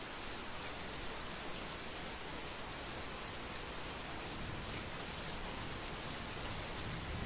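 Heavy rain falling steadily: a dense, even hiss with scattered small drop ticks.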